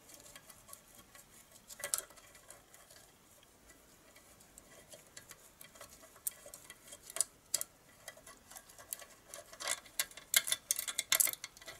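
Light metallic clicks and clinks from hand work on the connecting-rod cap inside the crankcase of a 1970 Briggs & Stratton 2 hp engine as the cap is worked loose. The clicks are sparse at first and come thick and fast in the last few seconds.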